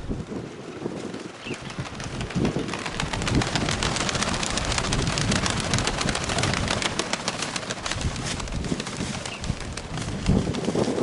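Wind gusting and buffeting the microphone in strong bursts, with pigeons close by.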